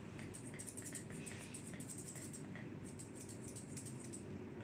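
Grooming scissors snipping the hair on a Shih Tzu's face: faint, light, quick cuts, several a second.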